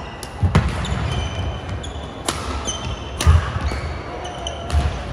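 Badminton rally: rackets striking the shuttlecock with a handful of sharp hits about a second or so apart, with players' shoes squeaking and thudding on the wooden court floor.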